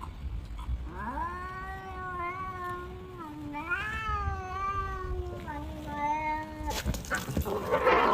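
A domestic cat giving one long, drawn-out, wavering meow lasting several seconds, with brief breaks in pitch partway through. A short noisy burst follows near the end.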